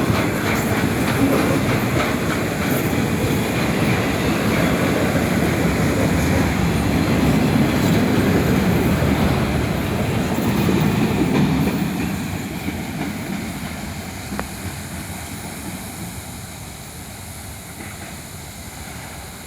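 Intermodal freight train cars rolling past, the wheels clacking over the rail joints with a steady rumble, fading away gradually from about two-thirds of the way through.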